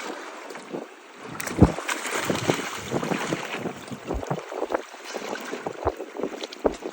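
Water splashing and sloshing with wind buffeting the microphone, broken by irregular low thumps.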